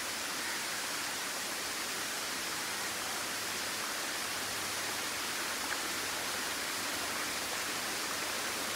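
Small waterfall running down a steep rock face: a steady, even hiss of falling water.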